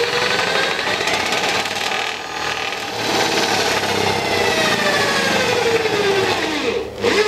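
Cordless drill-driver running a self-drilling screw through a steel fence picket into the rail, a steady motor whine with grinding drilling noise. Toward the end the whine slows and drops in pitch as the screw seats, then it stops.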